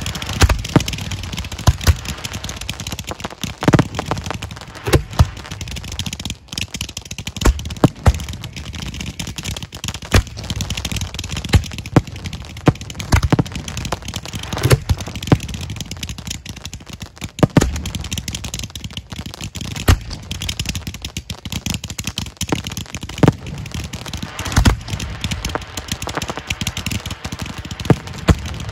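Fireworks display mortars firing aerial shells, a string of sharp launch thumps at irregular intervals, several a second at times, with a continuous hiss between them.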